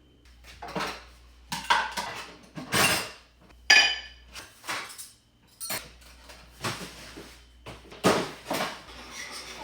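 Dishes and utensils clinking and clattering in a string of separate knocks, one clink ringing briefly about four seconds in.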